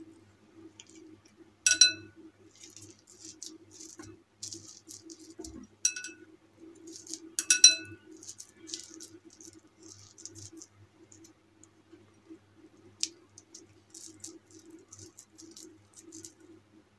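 Hands packing a crumbly modak filling into a plastic modak mould over a glass bowl: soft crackly rustling and clicking of the mould throughout, with three sharp ringing clinks of the glass bowl as it is knocked, about two, six and seven and a half seconds in. A low steady hum runs underneath.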